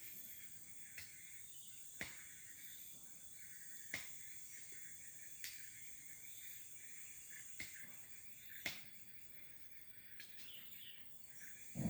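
Forest ambience: a steady, high insect drone of crickets or cicadas, broken by short sharp clicks every second or two, with a louder low thump or rustle near the end.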